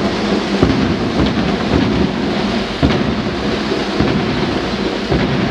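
Boots of a large column of soldiers marching in formation on asphalt: a dense, steady tramp with scattered louder thuds.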